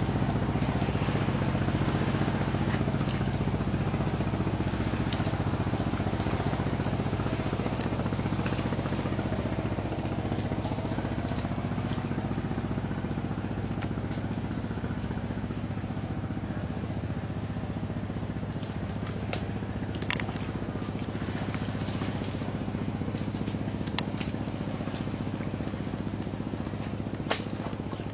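Steady low drone of an engine running evenly, with a few sharp clicks in the second half.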